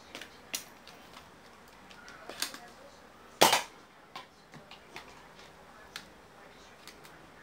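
Plastic clicks and clacks of a Nerf Mega BigShot blaster being handled, with one loud, sharp snap about three and a half seconds in.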